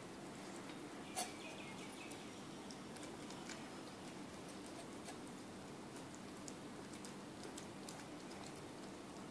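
A cat eating wet food and dry kibble from a stainless steel bowl: faint chewing with many small clicks, and one sharper click about a second in.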